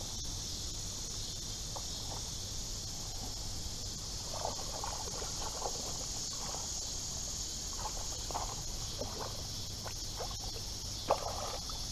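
Steady high chorus of crickets, with faint irregular splashes from a hooked catfish being reeled in at the water's surface. A brief louder sound comes near the end.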